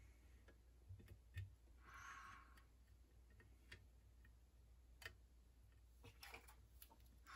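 Near silence with faint, scattered ticks from a soldering iron and tweezers working the leads in a circuit board's pin holes, and a soft brief hiss about two seconds in.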